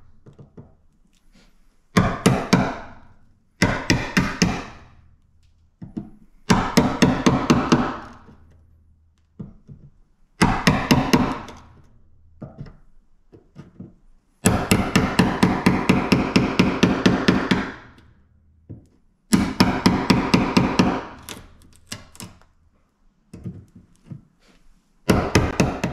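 Claw hammer striking a chisel in quick runs of sharp taps, several blows a second, with pauses between runs. The chisel is knocking decorative wooden plugs out of the underside of a wooden mantel.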